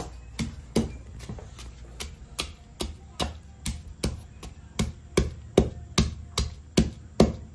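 Stone pestle pounding belacan, garlic, chilli and lemongrass in a stone mortar: a steady run of knocks, about two or three a second, striking harder in the second half.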